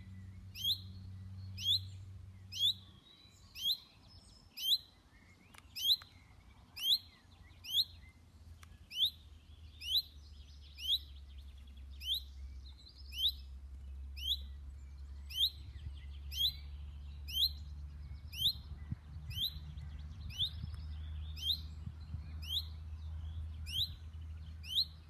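Common chaffinch calling: one short, high note repeated about once a second, each just like the last, which makes a monotonous call.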